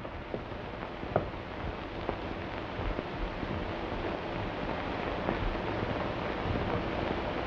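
Steady hiss and crackle of an early optical film soundtrack, with a few sharp clicks, the loudest about a second in.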